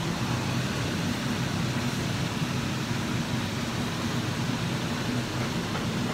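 Steady hum and hiss in a home kitchen, with teriyaki sauce simmering and bubbling in a non-stick frying pan on a gas burner as it is spooned over the salmon.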